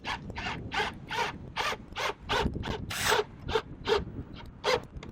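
A rhythmic series of about a dozen short rasping strokes, two to three a second, from hand work with a tool on the wood.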